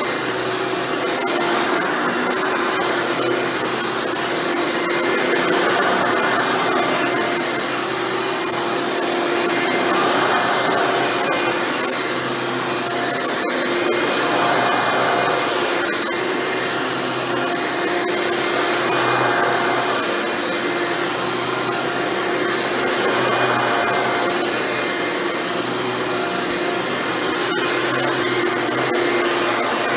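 Hoover Dimension Supreme upright vacuum running on carpet, its Elite-style motor freshly rebuilt with new bearings: a steady motor hum and rush of air. The sound swells and eases about every four seconds as it is pushed back and forth.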